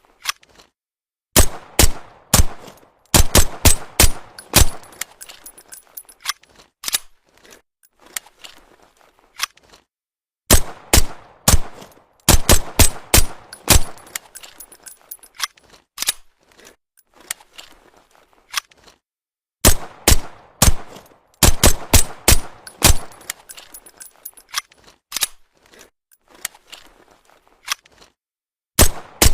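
Suppressed Walther PPK pistol firing in rapid strings of sharp shots, with short pauses and scattered single clicks between the strings.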